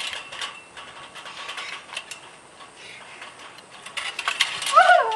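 Irregular clicks and light rattles, then near the end a loud chicken call that falls in pitch.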